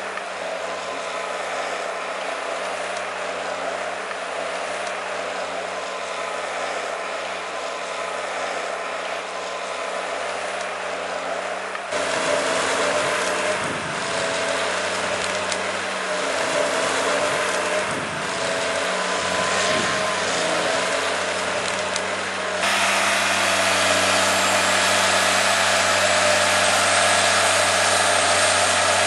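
Cat 584 forwarder running as it drives loaded with logs: a steady machine drone with held whining tones and a mechanical rattle from its tracked bogie wheels. The sound changes abruptly twice, about twelve and twenty-three seconds in, and is louder in the last stretch.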